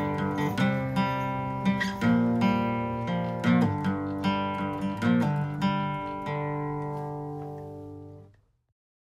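Background music of strummed acoustic guitar chords; the last chord rings on and fades out about eight and a half seconds in.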